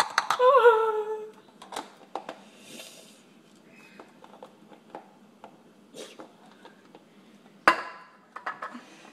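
Sporadic sharp pops from food cooking in a hot pan, with scattered knocks of dishes and utensils, the loudest knock a little before the end. A brief sung phrase opens.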